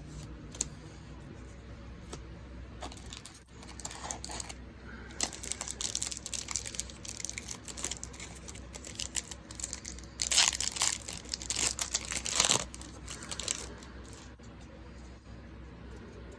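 Foil Magic: The Gathering booster pack wrapper being crinkled and torn open, loudest in a run of tearing and crinkling about ten to twelve seconds in. Scattered light clicks come before it.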